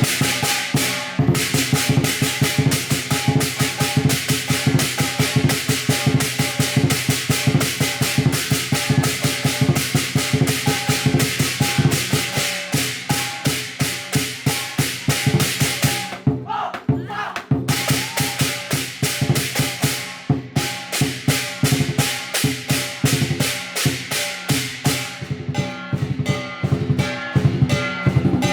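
Lion dance percussion band playing a fast, steady rhythm on big drum, crash cymbals and gong. The cymbal crashes drop out for about a second around the middle, then return.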